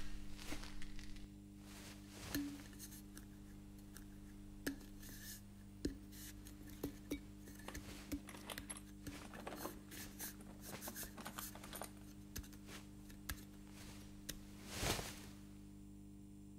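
Sparse small clicks and light scrapes of a gloved hand on a metal helmet, with soft rustling of suit fabric, over a steady low hum. A louder swell of rustling comes near the end.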